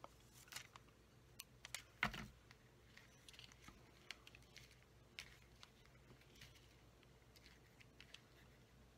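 Faint scattered clicks and light taps of hands working on a paper card: glue dots peeled off and ribbon tails pressed into place. The loudest tap comes about two seconds in.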